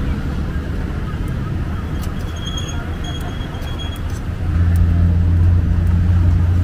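Street ambience dominated by a low, steady vehicle-engine hum that grows louder about four and a half seconds in, with a few light clicks of metal tongs on the wire grill.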